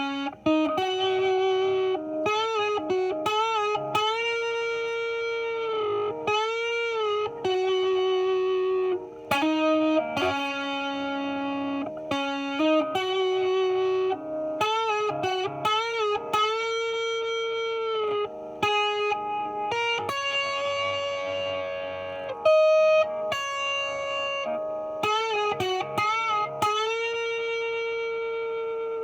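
Epiphone 1959 Les Paul Standard electric guitar on its bridge pickup through a distorted amp, playing a single-note lead line. Notes are picked and held with string bends and wide vibrato.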